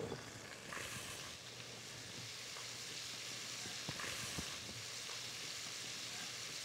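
Sliced onions and green bell pepper strips sizzling in hot oil in a cast iron Dutch oven, the searing vegetables making a steady frying hiss that builds under a second in. A couple of light clicks come near the middle.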